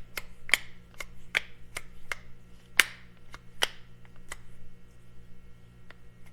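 Hand ratchet wrench clicking in short back-and-forth strokes as a bolt is run down, about two clicks a second, thinning out after about four seconds.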